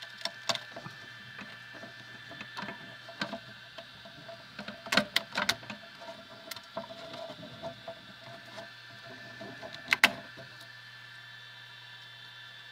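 3D printer running, a steady hum of several fixed tones, with scattered sharp clicks and knocks; the loudest come in a cluster about five seconds in and a close pair about ten seconds in.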